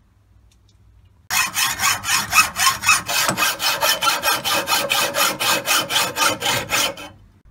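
Hacksaw cutting through a folding bicycle's metal handlebar stem tube held in a vise: quick, even back-and-forth rasping strokes, about five a second, starting a little over a second in and stopping shortly before the end.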